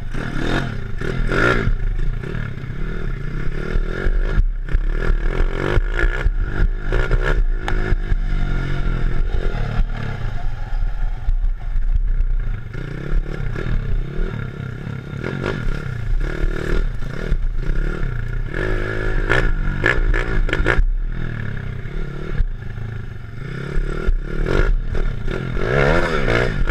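Honda ATC 70 three-wheeler with a 140 cc four-stroke engine being ridden hard over a rough dirt track, the engine revving up and dropping back, with frequent knocks and rattles from the bumps.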